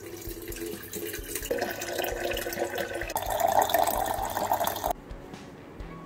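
Water running from an RO water purifier's tap into a stainless steel electric kettle, its pitch rising as the kettle fills, then stopping about five seconds in.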